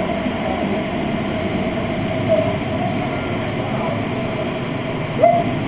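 Steady rumbling wash of a water-park lazy river, moving water with a constant hum, with short voice sounds about two seconds in and again near the end.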